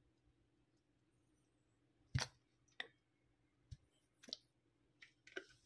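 Low room tone, then a few scattered sharp clicks and taps, the loudest about two seconds in and several more close together near the end.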